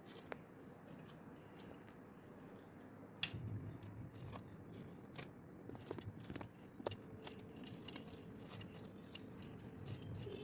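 Cotton thread being pulled and unwound off a crisp fried stuffed bitter gourd over a steel plate: faint rustling with scattered light ticks and crackles, the loudest about three seconds in.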